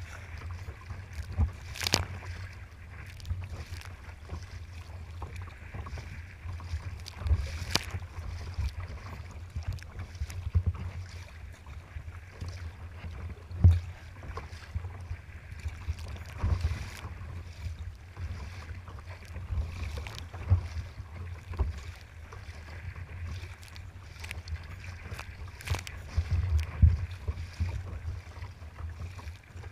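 Wind buffeting the microphone of a sea kayak's bow camera as a steady low rumble, with irregular sharp slaps and splashes of choppy water against the hull; the loudest slap comes about halfway through.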